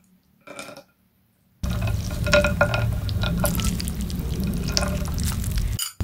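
Wet noodles lifted with chopsticks out of cold broth, the broth dripping and splashing, with light clicks against a glass dish. A steady low hum comes in about a second and a half in.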